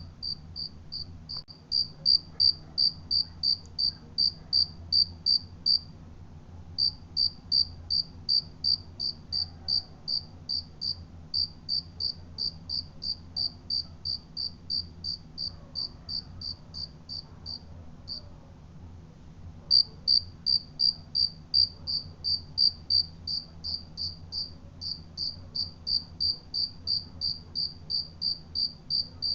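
A cricket chirping in a steady, even rhythm of about three to four short, high chirps a second, breaking off twice for a second or so before resuming.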